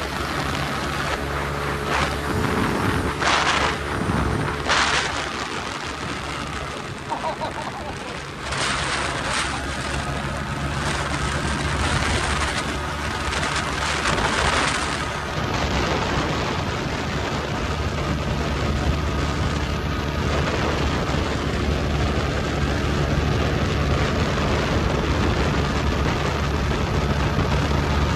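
Motorcycle engine running steadily at cruising speed under a heavy rush of wind on the microphone. The rushing is louder and gustier through the first half, while a truck is passed alongside, and eases about halfway.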